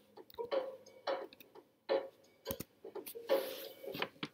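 Typing on a computer keyboard: a handful of separate, uneven key clicks, with a short hiss about three seconds in.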